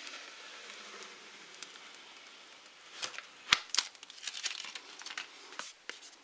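Thin plastic protective film being peeled off a tablet's back and crinkled in the hand. A faint rustle at first, then a run of sharp crackles and clicks from about three seconds in.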